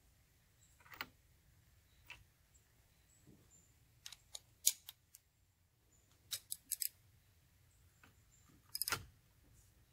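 Metal hand tools clicking and clinking as a wrench is picked up and fitted to the spark plug, in short sharp clusters, the loudest near the end.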